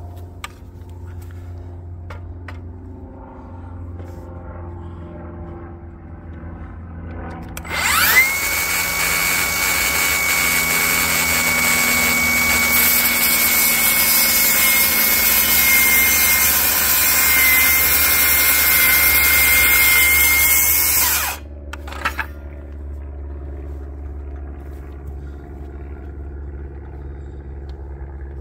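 Milwaukee M18 Fuel cordless circular saw spinning up about eight seconds in and cutting through the top of a pressure-treated wooden post for about thirteen seconds. A steady high motor whine, dipping slightly under load, sits over the rasp of the blade in the wood, then the saw stops suddenly.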